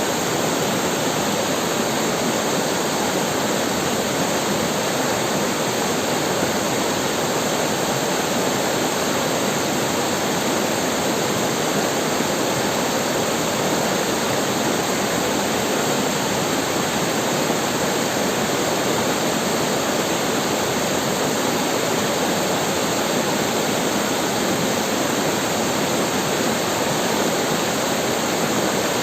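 River water rushing over rocks, a steady full noise that stays constant throughout.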